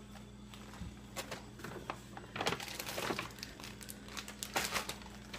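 Plastic snack bags crinkling and rustling in short, irregular spells as they are handled.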